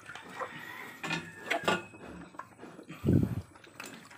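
Rustling and light knocks from a hand and cloth working around a newborn piglet against wooden pen boards, with one louder low thump about three seconds in.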